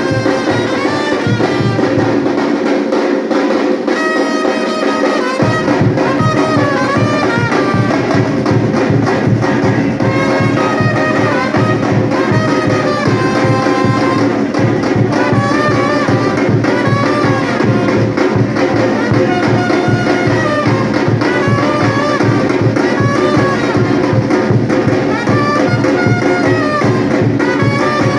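Batucada band playing: a fast, steady drum rhythm with brass carrying the melody over it. A few seconds in, the deep bass drums drop out for about three seconds, then come back in.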